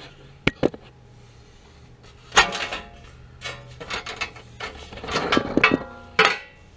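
Close-up handling noise: two sharp clicks, then an irregular run of knocks, rubs and scrapes. The loudest knock comes about two and a half seconds in. The noise comes from hands working at the base of a gas water heater and a sleeve brushing past the microphone.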